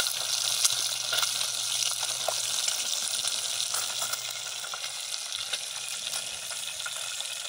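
Fish frying in hot oil in an aluminium pot over a wood fire: a steady sizzle with scattered crackling pops.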